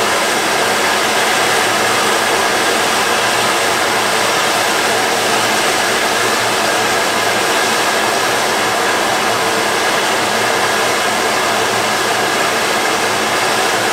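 Steady hiss of steam from Prairie Dog Central's 140-year-old 4-4-0 steam locomotive No. 3, standing under steam.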